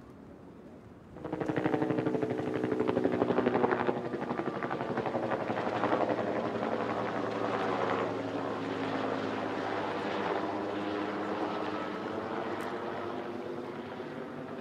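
A loud engine with a fast pulsing beat cuts in suddenly about a second in, then slowly fades.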